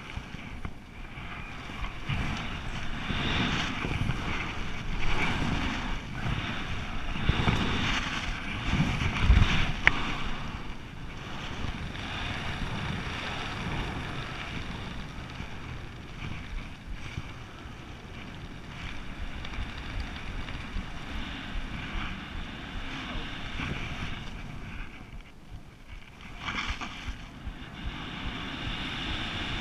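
Wind rushing over a helmet camera's microphone during a descent under an open parachute canopy. It buffets unevenly, with a few louder gusts in the first third and a short lull near the end.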